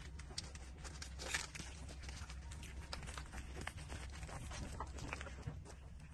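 Newborn puppies suckling at a mother dog's teats: faint, irregular wet smacking and clicking over a low steady hum.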